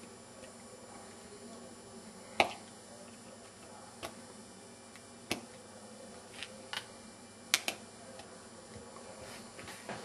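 Sharp, irregular plastic clicks from a small screwdriver working at the plastic display frame of an Alcatel One Touch 918D mobile phone, the frame's clips clicking, about eight in all, the loudest about two and a half seconds in.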